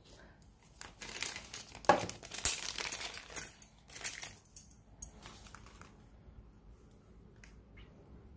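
Rustling and light clicks of hands handling silver jewellery, with one sharper knock about two seconds in; the handling dies away after about five seconds, leaving faint room noise.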